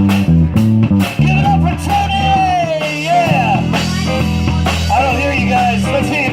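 Live band playing a rock/blues number: a bass line and drums under a lead line that bends and slides in pitch with vibrato.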